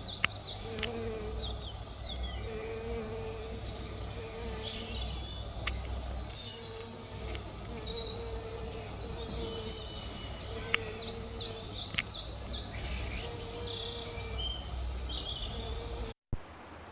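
Several songbirds singing and chirping in quick repeated phrases over a low steady rumble.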